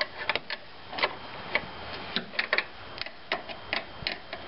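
Ratchet wrench clicking in irregular short runs as the 13 mm strut tower bolts are turned loose.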